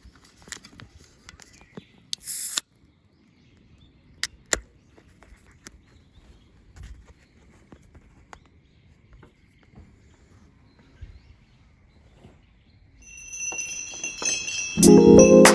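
Sparse small clicks and knocks, with a short hiss about two seconds in; music with mallet percussion fades in near the end and becomes the loudest sound.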